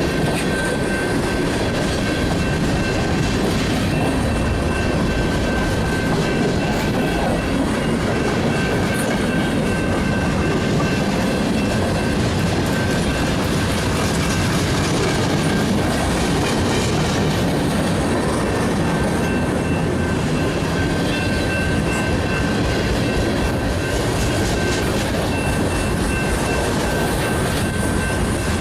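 Freight cars of a passing manifest train rolling by: a constant loud rumble with wheels clicking over the rail joints, and a thin steady ringing tone from the wheels on the rail.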